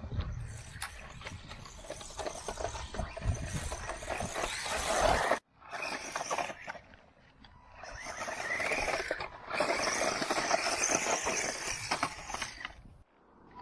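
Small electric RC monster truck driving off-road: rough tyre and drivetrain noise with a rising and falling motor whine, in stretches that cut off suddenly about five and a half seconds in and again near the end.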